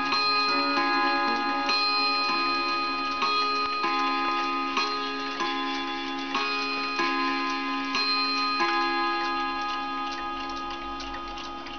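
Kieninger wall clock chiming: its hammers strike a run of ringing notes of changing pitch, about one a second. The last note comes past the middle and is left to ring out and fade, with the clock ticking underneath.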